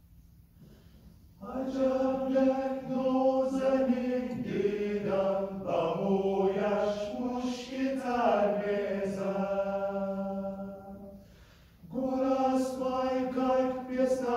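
Mixed choir of men and women singing sustained chords, entering about a second and a half in after a near-silent pause, fading out near eleven seconds and coming back in a second later.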